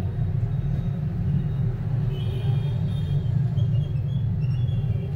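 Steady low rumble, with faint short high-pitched tones from about two seconds in.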